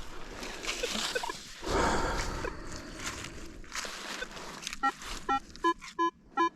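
Scuffing and scraping noise, then, about five seconds in, a metal detector, a Minelab Manticore, gives short repeated target beeps, roughly three a second. The beeps signal a buried metal target, which the detectorist judges fairly deep.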